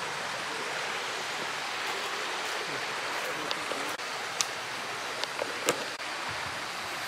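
Steady rush of river water, an even noise with no rhythm, with a few short sharp clicks in the second half.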